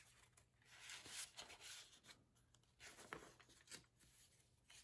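Faint rustling and sliding of paper as the pages, tags and cards of a handmade paper journal are handled and turned, in several short soft bursts.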